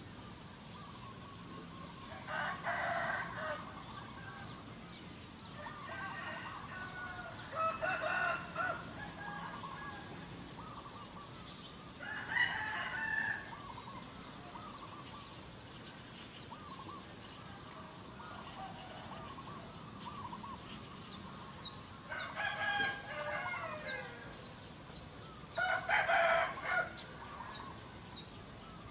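Domestic roosters crowing several times, each crow lasting a second or two, over a steady high chirping that repeats about twice a second.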